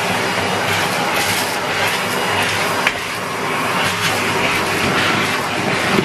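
Numatic Henry cylinder vacuum cleaner running steadily, sucking through its hose and wand over carpet, with a sharp knock about halfway through and another near the end.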